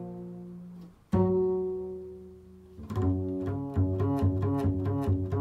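Improvised instrumental music on a low-pitched string instrument: one note plucked about a second in and left to ring out, then a run of quick plucked notes at about four or five a second from about halfway.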